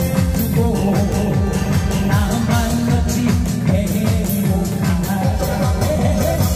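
Loud amplified music with a fast steady beat and a busy bass line, and a voice singing over it.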